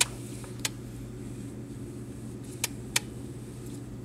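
Steady low electric hum of a reef aquarium's running pumps and equipment, with four short, sharp clicks, two of them close together near the end.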